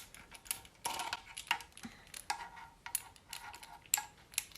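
Irregular light plastic clicks and knocks as the parts of an LED ring light are handled and fitted together by hand.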